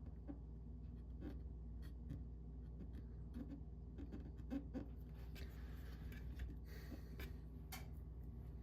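Light clicks and scratchy rubbing from hands working on an opened graphics card during thermal pad replacement, with a longer stretch of scratching about two-thirds of the way through, over a steady low hum.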